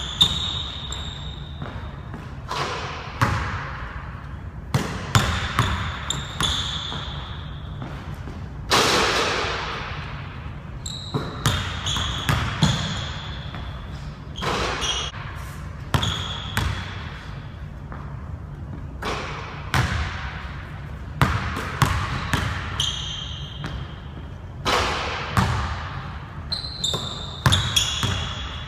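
Basketball dribbled on a hardwood gym floor, with irregular bounces and thuds echoing in the large hall, and short high sneaker squeals as the players cut and stop.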